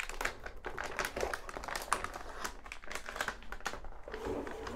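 Metallized anti-static bag crinkling and crackling as it is handled and lifted out of the motherboard box, in many small irregular crackles.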